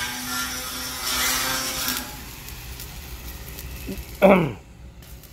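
Electric arc welding on a steel roof truss: the arc's crackling, frying hiss runs for about two seconds, then stops. About four seconds in, a brief loud sound sweeps steeply down in pitch.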